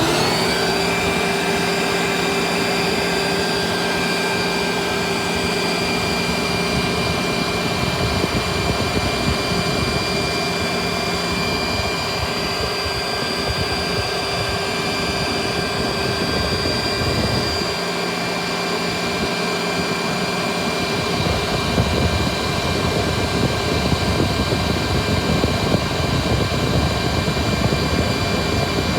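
Vacuum cleaner motor switched on, winding up within the first second to a steady high whine over a rush of air from its exhaust.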